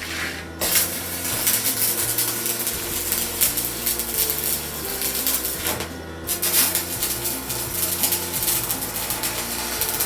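Background music with shifting bass notes and a fast, busy beat.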